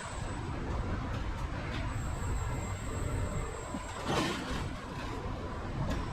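Car-plant assembly-line machinery noise: a steady mechanical rumble with a thin high whine, and a short hissing burst about four seconds in.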